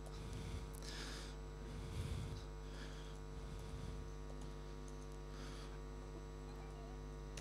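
Steady low electrical mains hum with a stack of even overtones, with a few faint soft sounds over it.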